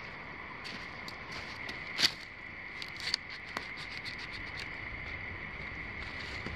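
Steady trilling of night insects, with scattered light clicks and snaps, the sharpest about two seconds in.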